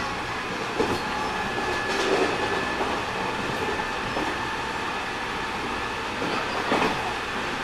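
JR West 207 series 1000-subseries electric commuter train running: steady wheel and traction noise with a constant-pitch hum, and a few knocks from the wheels on the track, about a second in, two seconds in and near the end.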